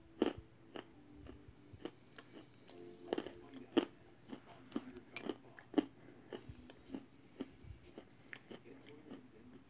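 Sticks of Cra-Z-Art chalk being bitten and chewed close to the microphone: irregular sharp crunches, about one or two a second.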